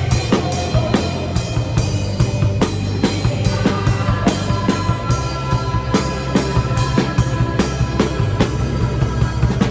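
Drum kit playing a steady beat of kick drum and snare, picked up as room sound, with the rest of the song's music sounding underneath.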